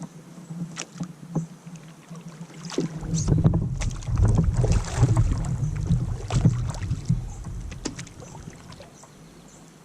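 Water splashing and sloshing against a kayak with knocks on the hull, a few sharp clicks at first, then louder and busier for several seconds in the middle before easing off.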